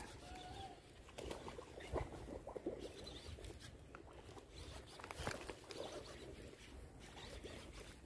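Faint scattered ticks and rustles from handling a baitcasting rod and reel while working a lure.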